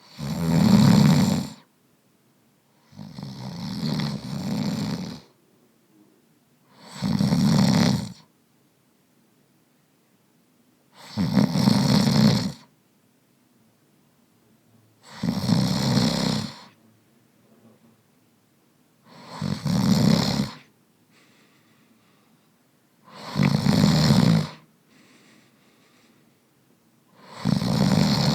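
A man snoring in a slow, even rhythm, about one snore every four seconds, eight in all. The second snore is longer and comes in two swells.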